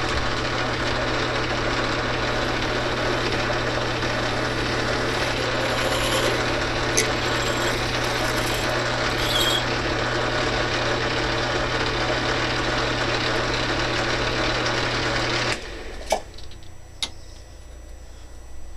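Small metal lathe running under power, its chuck spinning a brass workpiece while a 17/64 in twist drill in the tailstock bores the tap-drill hole for a 5/16 fine thread: a steady motor hum with cutting noise. About three-quarters of the way through the lathe is switched off and the sound stops suddenly, followed by a few light clicks.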